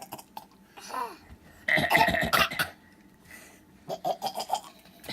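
Boys fake coughing in a rapid run of forced coughs, loudest about two seconds in, with a few shorter coughs near the end.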